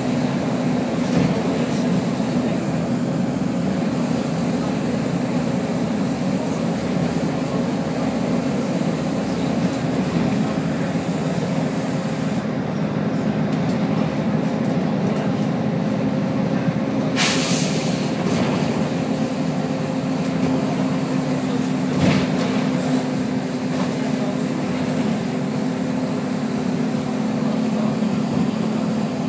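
Volvo B10BLE bus with Voith automatic gearbox running with a steady engine drone. About 17 seconds in there is a short hiss of air from its air system, and a brief sharp knock comes about 22 seconds in.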